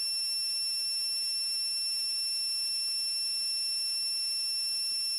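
A steady, unbroken high-pitched tone with overtones, holding one pitch throughout.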